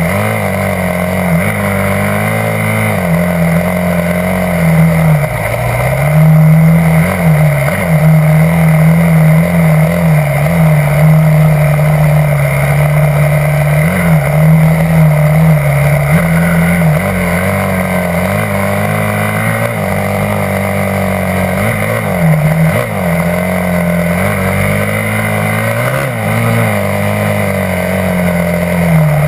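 Yamaha YZ250F dirt bike's single-cylinder four-stroke engine running on a trail ride, its revs rising and falling over and over with the throttle and gear changes.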